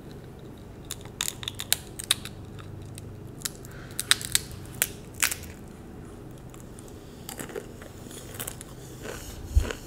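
A crunchy snack bitten and chewed close to the microphone: scattered sharp crunches, in clusters about a second in and again around four to five seconds in.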